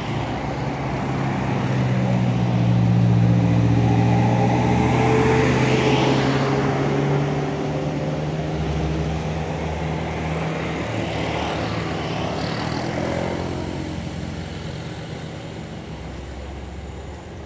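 Motor vehicle engine running on the road, growing louder over the first few seconds and then slowly fading away.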